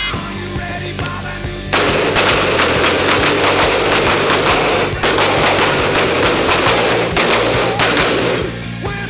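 Rapid pistol gunfire from an Open-division race pistol: fast strings of shots from about two seconds in until shortly before the end, with a brief break in the middle. Rock music plays underneath.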